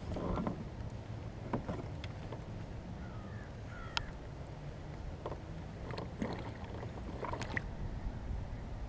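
Steady low rumble of wind and water around a kayak, with scattered clicks and knocks of fishing gear being handled against the hull.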